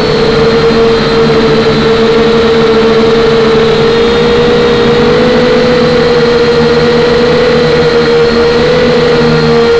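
Electric motors and propellers of a small camera drone, a steady high hum that wavers slightly in pitch. It is heard loud through the aircraft's own camera.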